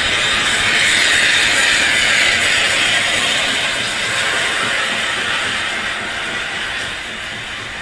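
Steam locomotive (1919 Krauss 0-8-0 tank engine No. 92.2271) moving with a steady loud hiss of steam, growing fainter near the end.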